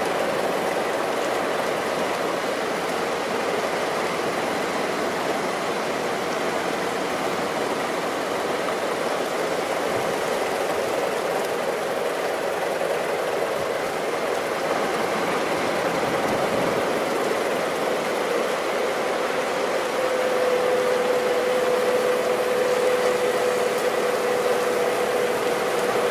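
Surf breaking and washing over the shallows, with a steady engine hum beneath it; about twenty seconds in the hum settles a little lower in pitch and the whole grows slightly louder.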